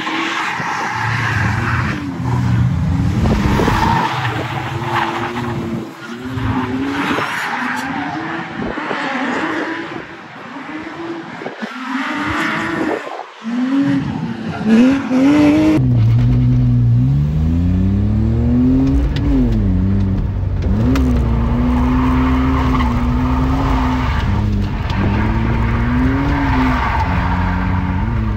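A car drifting: the engine revs rise and fall while the tyres squeal, heard from the side of the track. About halfway through, the sound switches to inside a car's cabin, where the engine revs climb steeply and then hold high with small rises and falls.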